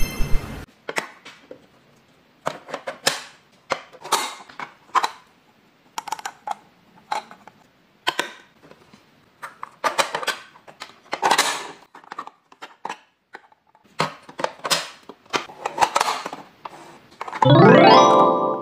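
Hard plastic toy-kitchen pieces (play food, a toy ice cream machine and plastic cones) being handled: irregular clicks, taps and light clunks with short pauses between them. Near the end an electronic tune starts.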